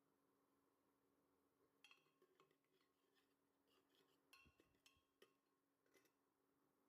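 Near silence, then from about two seconds in a scatter of faint clinks and taps of kitchenware.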